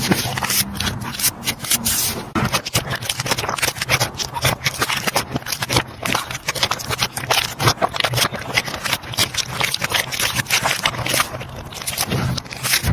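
Slime being squished and worked by hand, giving a dense run of small sticky clicks and crackles.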